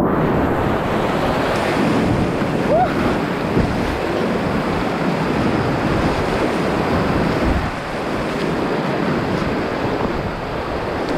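Brown, flood-swollen river rapids rushing and churning around a whitewater kayak, with wind buffeting the microphone. The rushing is steady and eases a little about two-thirds of the way through as the boat reaches calmer water.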